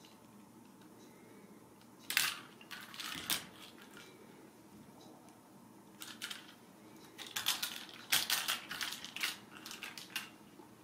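Ragdoll kittens scampering and pouncing after a feather wand toy, their claws scratching and clicking in quick bursts. One cluster comes about two seconds in and a longer one from about six to ten seconds.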